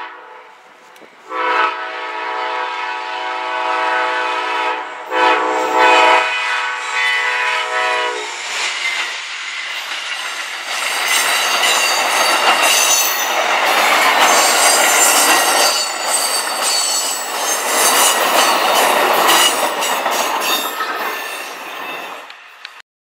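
Amtrak passenger train's locomotive horn sounding two long blasts, a chord of several notes. The train then passes close by with a loud rush of wheels and clickety-clack over the rail joints, which cuts off suddenly near the end.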